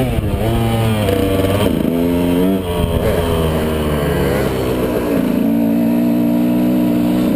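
KTM 125 SX two-stroke single-cylinder dirt bike engine under way, revs rising and dropping several times as the throttle is worked, then holding a steady pitch from about five seconds in.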